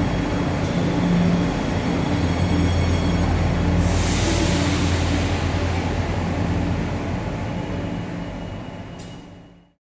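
Madrid Metro series 8000 electric train in the station, its traction equipment giving a steady electric hum over a low rumble. A burst of hiss comes about four seconds in, then the sound fades out near the end.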